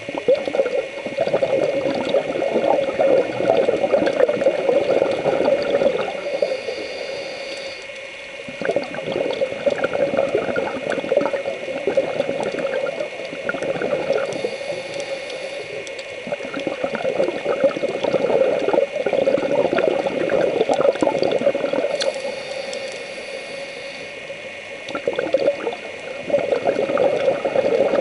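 Scuba diver breathing through a regulator underwater: long stretches of bubbling exhalation, about four of them, separated by quieter pauses for the inhale.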